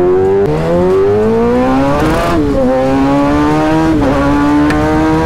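Kawasaki ZX-6R inline-four engine under hard acceleration, revving up and upshifting about three times. The pitch drops at each gear change and climbs again, more slowly in the higher gears.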